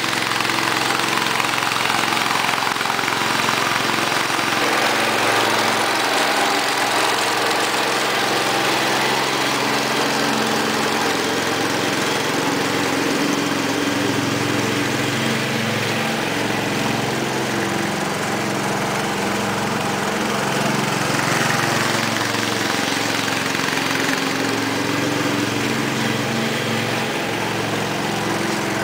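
Cub Cadet 127 garden tractor's single-cylinder Kohler engine running steadily while mowing, with the 48-inch mower deck's blades engaged.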